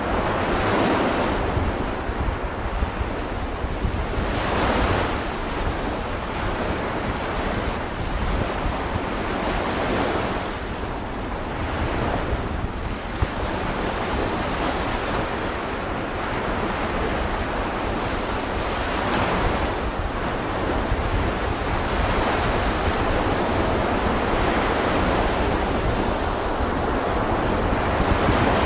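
Sea waves washing in, in slow swells every few seconds, with wind buffeting the microphone.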